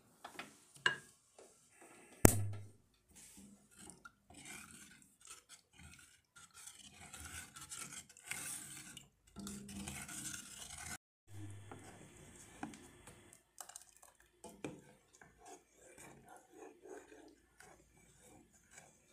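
A spoon stirring a thickening white sauce in a stainless steel pot, with irregular scraping and rubbing against the metal. A sharp knock about two seconds in is the loudest sound, with a smaller click just before it.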